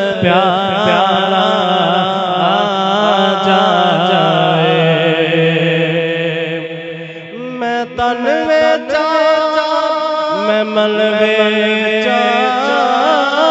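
A man's solo voice chanting a naat, a devotional poem in praise of the Prophet Muhammad, into a microphone. It sings in long, wavering, ornamented phrases, drops away briefly about seven seconds in, then takes up the next line.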